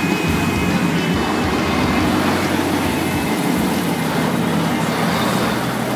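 Street traffic noise with the steady low hum of a bus engine running close by.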